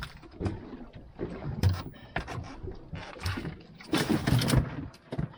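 Irregular knocks and thumps on a small boat's deck, with a louder scuffling burst about four seconds in.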